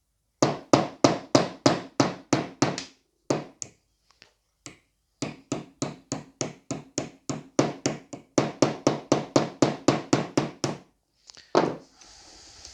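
Small hammer tapping a male pin contact through a 3D-printed connector insert held in a vise. The light, sharp taps come in two quick runs of about three to four a second, with a short pause and a few single taps between them.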